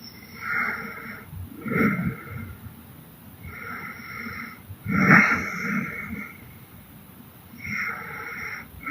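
A woman snoring hard in her sleep: five snoring breaths spaced one to two and a half seconds apart, the loudest about five seconds in.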